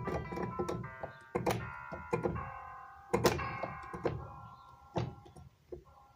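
Piano notes and small chords played from an M-Audio Axiom 25 MIDI controller keyboard and sounded by the computer software. They ring and fade while the controller's octave shift is stepped, with the thunk of its semi-weighted keys and buttons. The notes die away near the end.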